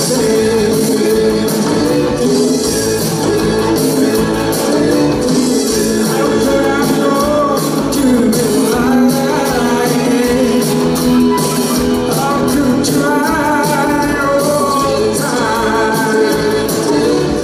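Live band playing a song: a male lead singer over guitars, piano and drums.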